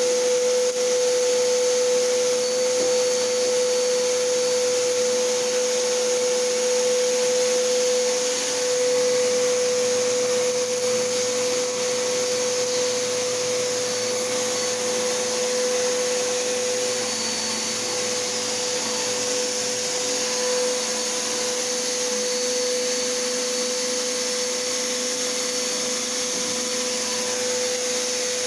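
Bissell PowerForce Helix Turbo upright vacuum cleaner running steadily, its motor holding one even whine over the rush of air.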